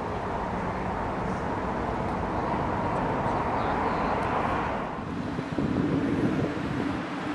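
Steady engine and road noise of motor traffic, growing louder over the first few seconds, then breaking off about five seconds in and giving way to a more uneven traffic noise.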